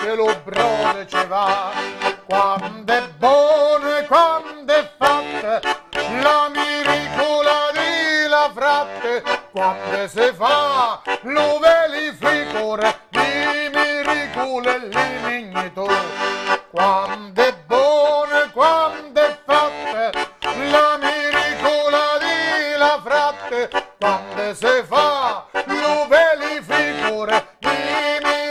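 Organetto, a diatonic button accordion, playing a traditional tune, with a steady rhythmic pulse of bass notes under the melody. A man's voice sings over it.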